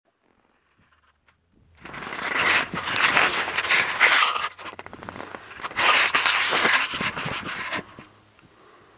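Scraping and rustling against the camera's microphone in two loud spells, the first starting about two seconds in and the second around six seconds, full of crackles.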